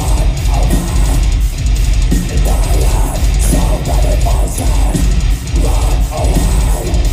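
Metalcore band playing live: heavy distorted guitars and a pounding drum kit, loud and dense, heard from within the audience.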